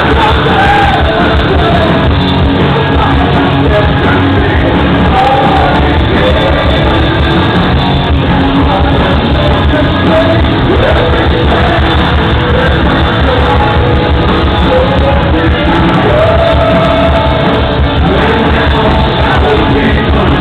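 Live rock band playing loudly, with electric guitars and drums under a sung lead vocal, in a large hall.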